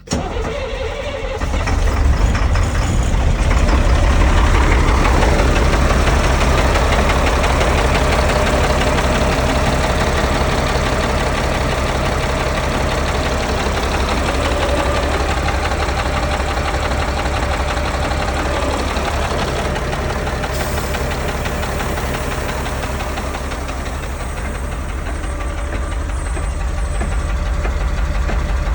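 Caterpillar 3126 inline-six diesel engine starting: it catches right away, comes up to speed within about two seconds, then idles with a steady, rough beat. It is the first start after a new high-pressure oil pump, and the owner reports a cylinder 1 misfire and heavy blowby.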